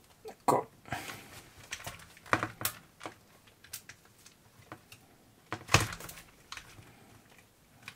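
Small scattered clicks and knocks of plastic and aluminium RC-car parts being handled and pressed together on a small chassis, with the loudest knock about six seconds in.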